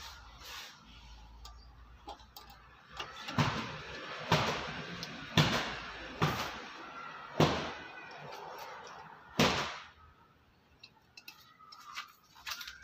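A series of sharp knocks, about six spaced roughly a second apart, each ringing briefly, from handling the electric rice cooker's body and tools on a metal tabletop; a few faint ticks follow near the end.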